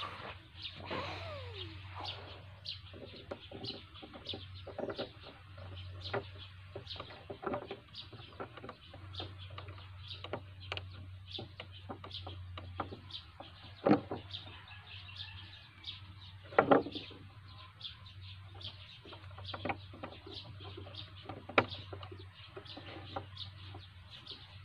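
Light clicks and knocks of small plastic trigger parts being handled and fitted together on a wooden tabletop, a few of them sharper, with birds chirping and a steady low hum behind.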